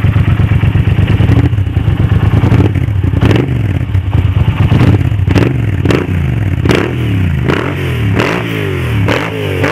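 Yamaha TDM 900's parallel-twin engine through a Creptus aftermarket exhaust, running at idle for a few seconds and then revved in about eight sharp throttle blips that come closer together, each falling back toward idle.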